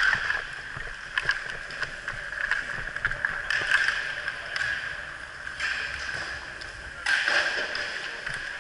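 Inline skate wheels rolling and scraping on a plastic sport-court rink floor in surges as the player strides, with scattered sharp clicks of hockey sticks and puck.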